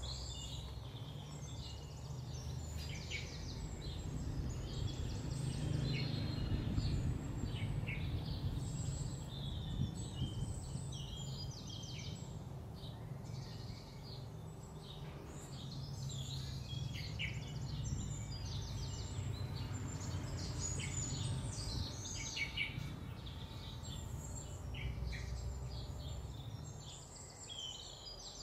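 Outdoor ambience: birds chirping in many short calls over a steady low rumble.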